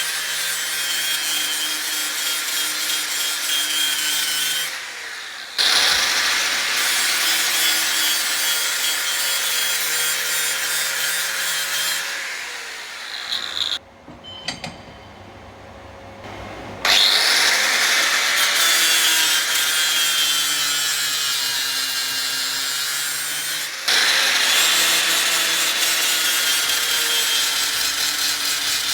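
Electric grinder grinding and shaping welded steel, the finishing of a weld repair, in several long runs with short breaks between them. Its motor note sags slightly under load and recovers.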